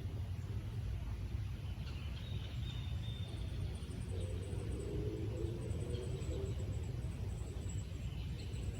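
Outdoor suburban soundscape: a steady low rumble of distant traffic, with a few faint high songbird calls over it. In the second half a high, fast pulsing trill runs on, and midway there is a brief lower hum.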